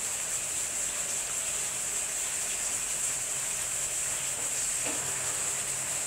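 Steady high-pitched hiss without a break; no woodpecker drumming or tapping is heard.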